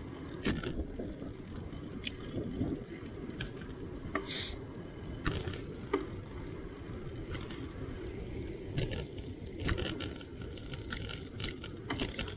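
Bicycle rolling over rough, patched asphalt: a steady low rumble of tyre noise, broken by scattered clicks and rattles from the bike over the bumps.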